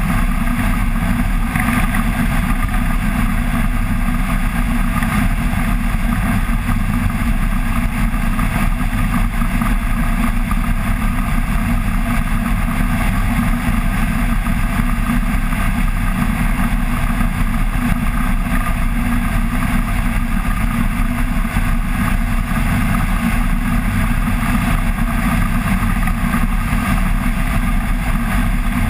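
Flexwing microlight trike's pusher engine and propeller running steadily in level cruise, mixed with heavy wind rush on a wing-mounted microphone.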